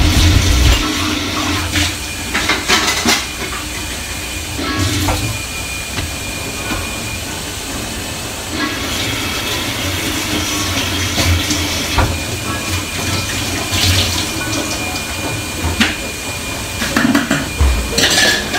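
Soup simmering in a frying pan: a steady bubbling hiss with occasional sharp pops.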